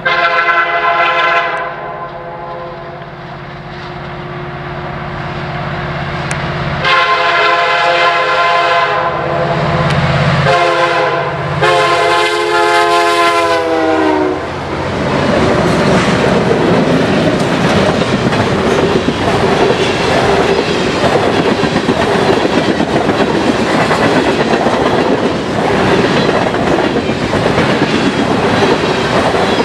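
Freight train's diesel locomotive air horn sounding a series of blasts, long, long, short, long, the usual grade-crossing signal, its pitch dropping at the end of the last blast as the lead locomotive passes. Then the train rolls by: the locomotives' rumble, then the cars' wheels clickety-clacking over the rail joints.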